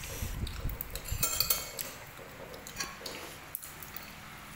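Cutlery and dishes clinking at a meal table, with dull handling knocks at first and a few short clinks about a second in and again near three seconds.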